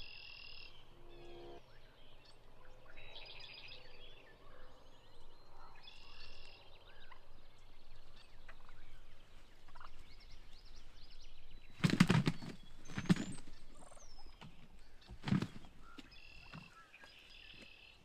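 Wild turkey toms gobbling repeatedly, each gobble a rattling call about a second long. Between about twelve and fifteen seconds in come three sharper, louder sounds.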